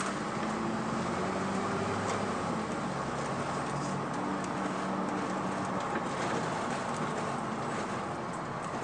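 Cab of a 2002 MAN 12.223 bus under way: the diesel engine pulling along with steady road and tyre noise. The engine note climbs a little in the first couple of seconds and changes about six seconds in.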